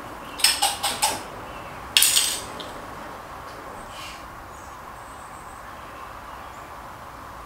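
A small propane-oxygen torch being lit: a quick run of sharp metallic clicks, then a short burst about two seconds in as the flame catches, over a steady hiss of gas.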